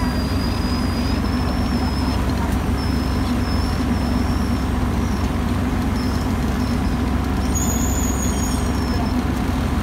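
A steady, loud engine drone of the machinery hoisting the tuna, with a thin high whine that comes and goes.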